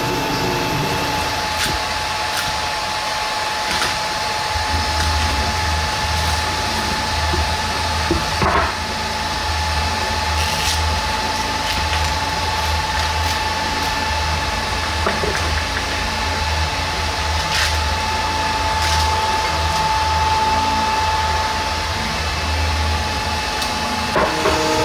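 Steady whir of a workshop blower motor with a constant whine over it. A deeper hum joins about four seconds in, and a few light knocks and clacks from pieces being handled come through here and there.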